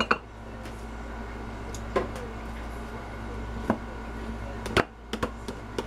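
A spoon knocking against a plastic canning funnel and glass jar as thick preserves are spooned in: a few short, light knocks spaced a second or so apart, over a steady low hum.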